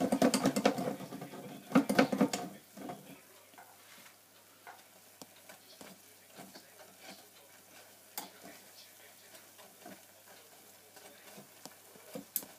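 Puff puff dough balls deep-frying in hot oil in a small electric deep fryer, giving a faint crackling sizzle with scattered light clicks of a spoon against the wire basket. There are louder bursts of sound in the first two to three seconds, and a sharper click near the end.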